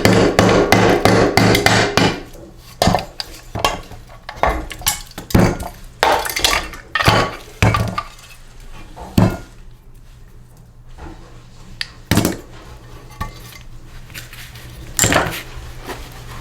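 A hammer striking metal engine parts in a quick run of blows, about five a second, for the first two seconds, then scattered single knocks and clinks of metal parts being handled, with a louder knock about twelve seconds in and another about fifteen seconds in.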